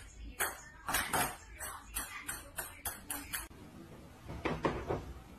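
Knocking on a closed door: sharp knocks that quicken to several a second, then stop suddenly about three and a half seconds in.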